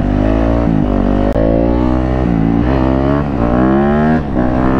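Yamaha YZ450F single-cylinder four-stroke engine revving hard under load as the bike is held in a wheelie. The pitch climbs in several runs, dropping back between them as the throttle is rolled off or the gear changes.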